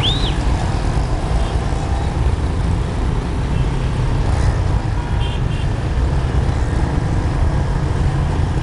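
Steady low rumble of a Boeing 777-300ER airliner on final approach, its engines and the rushing air heard from inside the aircraft. A short high chirp sounds right at the start.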